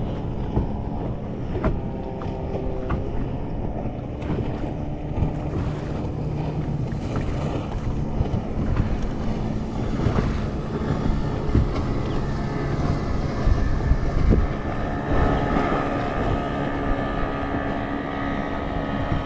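Wind buffeting the microphone and small waves lapping at a bass boat's hull, under the steady electric whine of the bow-mounted trolling motor, whose pitch shifts now and then.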